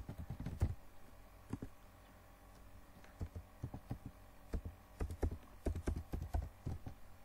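Typing on a computer keyboard: irregular runs of key clicks, with a lull of about a second around two seconds in.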